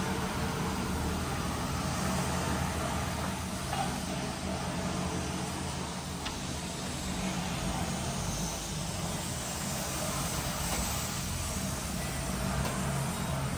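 Diesel engine of a JCB 3DX backhoe loader running steadily.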